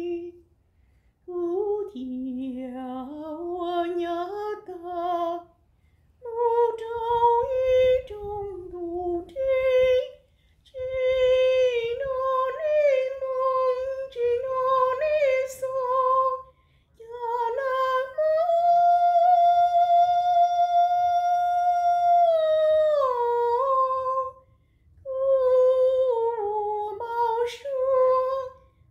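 A woman singing a Hmong folk song unaccompanied, in long wavering, ornamented phrases broken by short pauses for breath, with one long held note about two-thirds of the way through.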